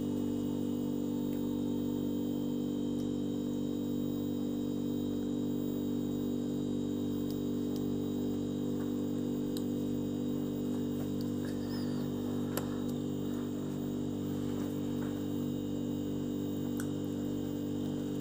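Steady electrical mains hum made of several constant low tones, with a faint click about twelve and a half seconds in.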